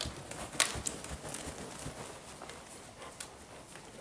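Faint hoofbeats of a grey horse moving over a soft indoor arena surface, with a few sharper clicks scattered through.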